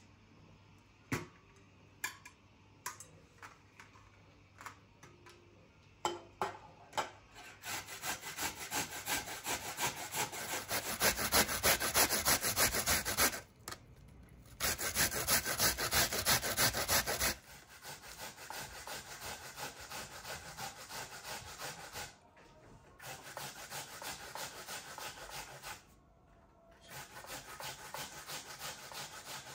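Onion being grated on a stainless steel box grater: quick, even rasping strokes in runs of several seconds, broken by short pauses. For the first few seconds, only a few light clicks as the onion is peeled.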